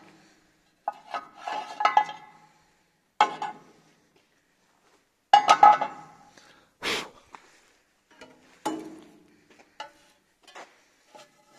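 Irregular metal clanks and clinks as the drilled aluminium door profile and the steel drilling template are handled on the machine, a cluster of knocks about halfway through and a single sharp knock a second or so later, each with a short ring.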